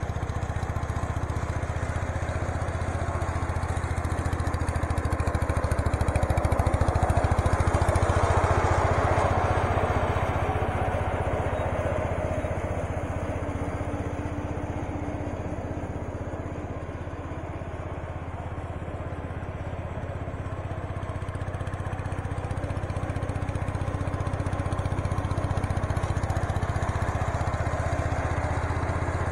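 Case 444 garden tractor's single-cylinder Kohler engine running steadily under load, its mower deck engaged and cutting grass. It grows louder as the tractor passes close about seven seconds in, fades by the middle, and builds again near the end as it comes back.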